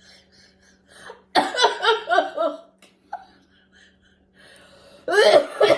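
Coughing and laughing from people reacting to a hot chili-and-mint snack, in two loud bursts: one about a second and a half in, another near the end.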